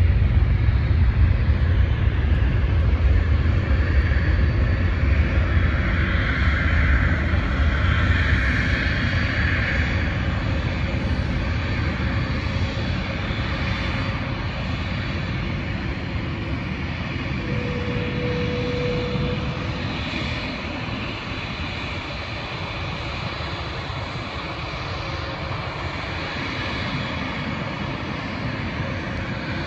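Airliner's engines after take-off: a loud rumble that fades steadily as the aircraft climbs away. A short steady whine sounds for about a second a little past halfway.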